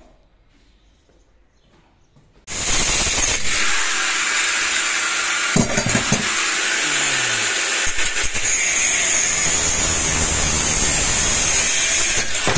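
Angle grinder starting suddenly about two and a half seconds in and running steadily and loudly at the old boiler's wall pipes, after a quiet stretch.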